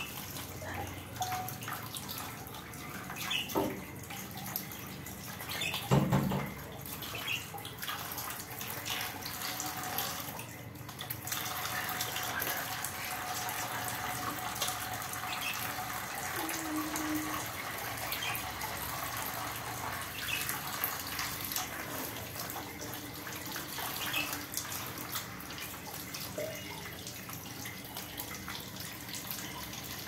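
Water pouring steadily from above and splashing through a wire budgie cage, a continuous splashing hiss, with a couple of knocks in the first several seconds.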